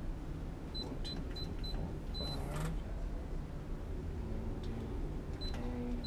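Alarm Lock Trilogy electronic keypad lock beeping as its buttons are pressed while a programming code is keyed in. Four short high beeps come in quick succession, then a longer beep about two seconds in, and another short beep near the end.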